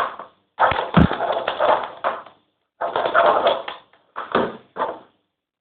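Fluffy shaving-foam slime being squished and worked in four bursts, two long and then two short, with a dull thump about a second in. The slime is still sticky, just after borax water was mixed in.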